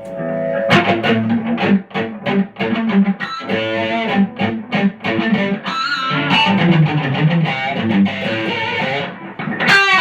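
Electric guitar on its humbucker setting, playing overdriven lead lines through two stacked Tube Screamer overdrive pedals (an original Ibanez TS808 plus a second Tube Screamer) into a vintage Fender valve amp. There is a string bend near the end.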